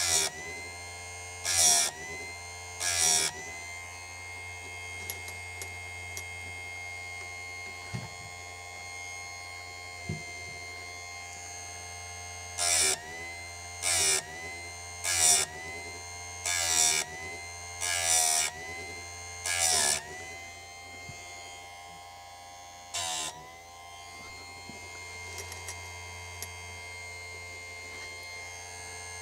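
Electric chain-sharpening grinder (Sturm BG6060) running steadily, its abrasive disc grinding chainsaw chain teeth in about ten short, loud bursts with a quiet stretch in the middle. Each grinding contact briefly drags the motor's pitch down before it recovers.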